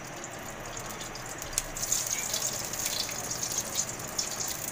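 Green cardamom pods sizzling and crackling in hot ghee in a steel pot.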